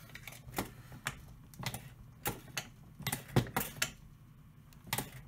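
Shotshell reloading press being worked by hand to crimp a shotgun shell: a string of uneven mechanical clicks and clacks, the loudest about three and a half seconds in.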